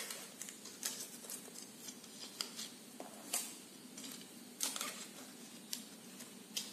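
Irregular light clicks and scrapes, a dozen or so, as a steel piston oil ring is worked onto an aluminium piston by hand, sliding over thin plastic strips laid round the piston to keep it from scratching.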